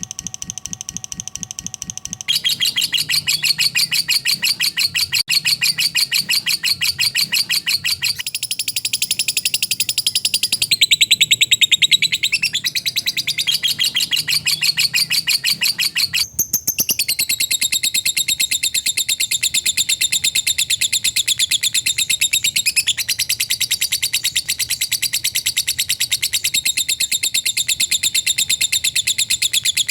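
Lovebird 'ngekek' chattering: a long, continuous trill of very rapid, tightly spaced high chirps. The tone changes abruptly about two, eight and sixteen seconds in.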